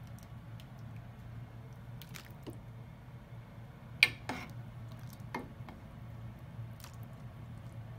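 A ladle stirring and scooping soup in a pot, liquid sloshing and dripping, with a few light clinks of the ladle against the pot, the sharpest about halfway through. A steady low hum runs underneath.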